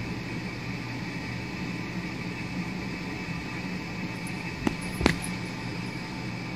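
Steady room hum and hiss, with two short clicks close together about two-thirds of the way through.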